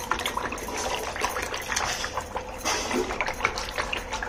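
A churning stick spun back and forth between the palms in a glass bowl of barley porridge and buttermilk, giving an irregular liquid sloshing and splashing with many small clicks.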